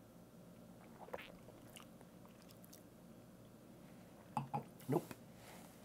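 Faint mouth sounds of people sipping and tasting a cocktail over quiet room tone, with a small click about a second in and a few short, louder sounds about four and a half seconds in.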